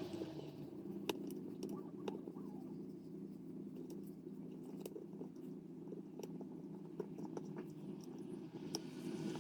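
Small irregular clicks, crunches and scrapes of plastic opening picks working around an iPhone 12 Pro Max's frame to cut through the screen adhesive, over a steady low hum.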